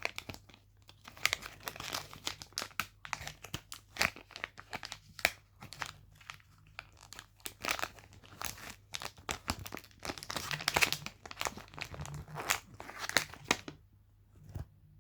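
Foil wrapper of a Pokémon card booster pack being torn open and crinkled, in irregular crackles and rips that stop near the end.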